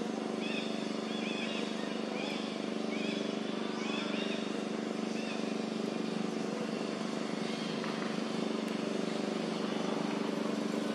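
A steady engine hum runs throughout. Over the first half a high chirping call repeats roughly once or twice a second, then stops.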